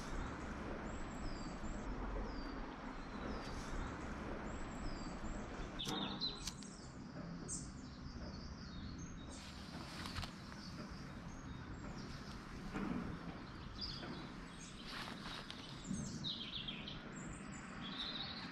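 Wild birds singing and calling over a steady rushing background noise. For the first few seconds one bird repeats a short, high, falling chirp about every 0.7 s. Louder, varied calls follow.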